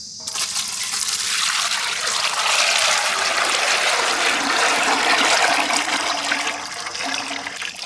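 Wood-pressed sesame oil poured in a steady, gushing stream into a large cooking vessel, easing off a little near the end.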